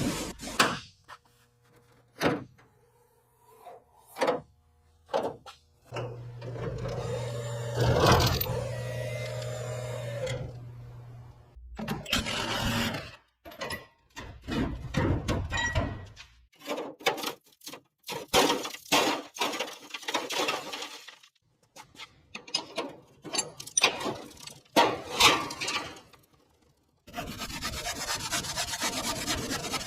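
A run of hand-tool work sounds: rubbing and scraping strokes and sharp knocks, with a steady motor hum for about five seconds a fifth of the way in and a steady hiss near the end.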